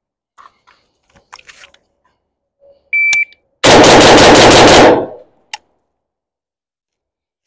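A shot timer beeps once, and about half a second later an AK-pattern rifle fires a rapid string of roughly ten shots lasting about a second and a half. Light gear-handling clicks come before the beep, and a single faint click follows the string.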